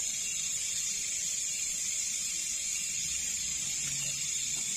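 Steady high-pitched chorus of night insects, an unbroken buzzing hiss.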